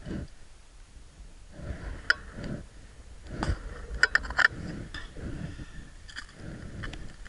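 Close handling noise as a pike is unhooked on the ice: clothing rustling against the camera, with a run of sharp clicks and knocks from the lure and rod, bunched together about three and a half to four and a half seconds in.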